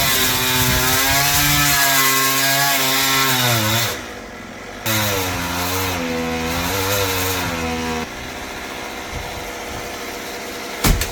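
Chainsaw running at high revs in two long bursts, its pitch wavering as it works through the wood, with a brief drop about four seconds in. From about eight seconds it runs lower and steadier, and a sharp knock comes near the end.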